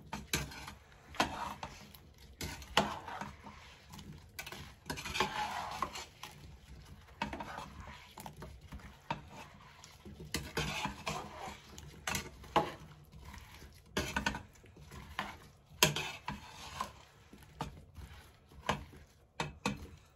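A metal spoon stirring chunks of apple in a cooking pot, scraping and clinking against the pot in irregular strokes every second or two.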